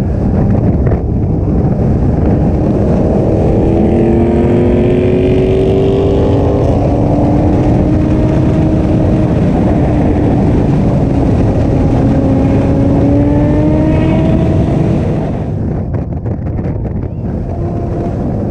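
A vehicle engine running under heavy low rumbling noise, its pitch climbing slowly as it speeds up, twice. The sound drops in level near the end.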